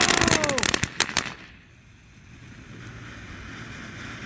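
Consumer fountain firework crackling and popping, with a few falling whistle tones. It cuts off about a second in, leaving only a faint low background hum.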